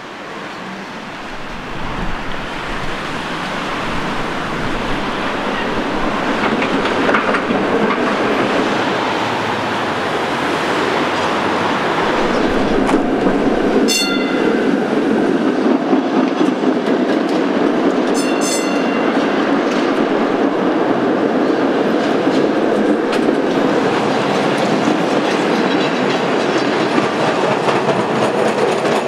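Streetcars running on street track: a steady wheel-on-rail rumble and clatter that builds over the first few seconds. Two brief high ringing sounds come about halfway through and again a few seconds later.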